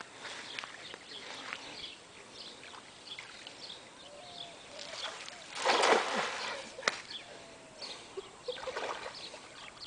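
A cast net splashing onto the water about six seconds in, with a weaker rush of water near the end; small birds chirp faintly throughout.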